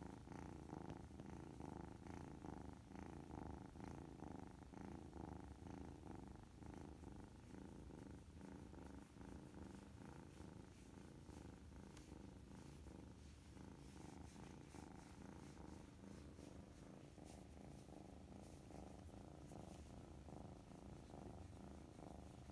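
Tabby kitten purring softly and steadily while its chin and cheek are rubbed.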